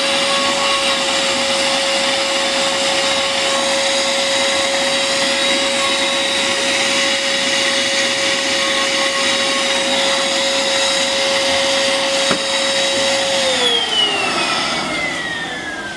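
Bolde Super Hoover vacuum cleaner running steadily with a constant whine. It is switched off about 13 seconds in, and the whine slides down in pitch as the motor spins down. By the owner's account the motor has turned warm because its filter is full of dust, which weakens its suction.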